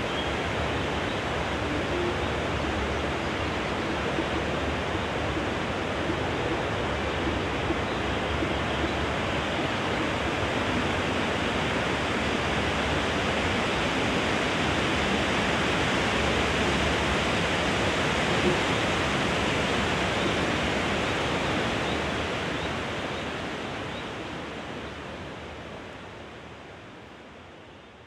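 Wind rustling through the leaves of a stand of tall trees, a steady leafy hiss that swells a little toward the middle and then fades away over the last several seconds.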